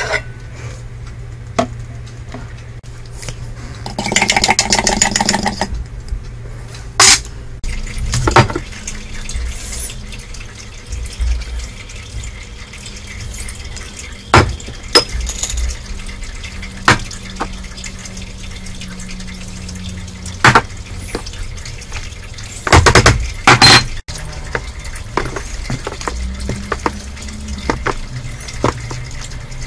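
Kitchen handling sounds over a steady low hum: knocks of containers and utensils, liquid being poured, and raw chicken pieces being mixed in marinade by gloved hand.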